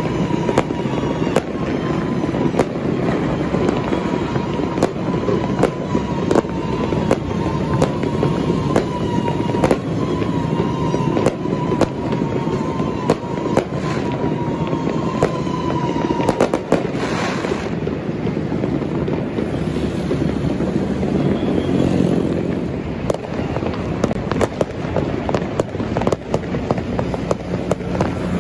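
Fireworks and firecrackers going off in a dense, irregular run of bangs and crackles. A faint tone slowly falls in pitch through the first half.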